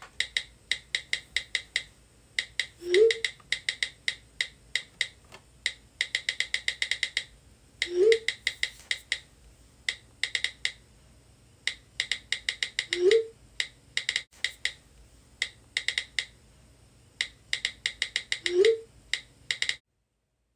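Rapid phone-keyboard typing clicks in quick runs and bursts, with a short low rising tone about every five seconds; the clicking cuts off suddenly near the end.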